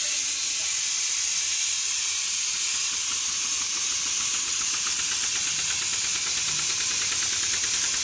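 Steady, high hiss of compressed air leaking from a standing railway freight wagon's air brake system.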